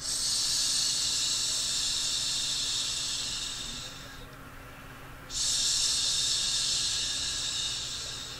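A woman voicing the lung sound of the Six Healing Sounds: two long 'sss' hisses like a snake, made with the tongue just behind the front teeth. The first tapers off about four seconds in, and the second starts sharply about five seconds in and fades near the end.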